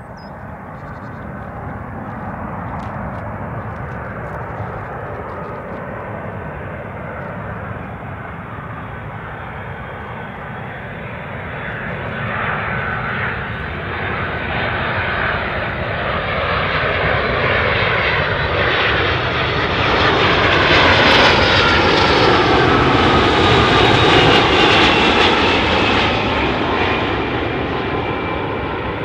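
Boeing 757's two Pratt & Whitney PW2000 turbofans on landing approach: a steady jet rumble and whine that grows louder as the aircraft closes in. It is loudest about three quarters of the way through, where the whine drops in pitch as the jet passes, then eases off.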